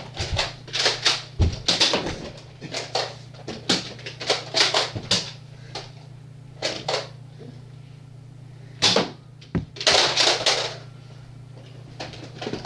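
Irregular clusters of sharp clacks and puffs from Nerf blasters being fired and worked during a foam-dart fight, over a steady low hum.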